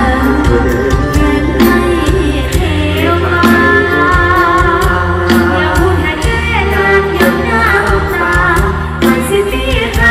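Loud live Thai stage music with a singer, carried over the concert sound system. The singing glides over sustained chords and a strong bass, with drum hits throughout.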